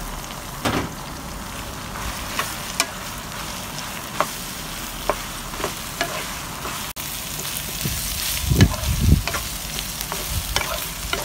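Cubed eggplant sizzling in hot oil in a pan, stirred with a wooden spatula that scrapes and knocks against the pan now and then. A couple of heavier thumps come about eight and a half seconds in.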